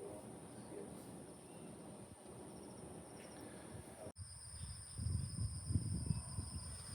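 Crickets or similar insects trilling steadily in a high-pitched chorus. About four seconds in the audio cuts, and a louder low rumble on the microphone comes in under the insects.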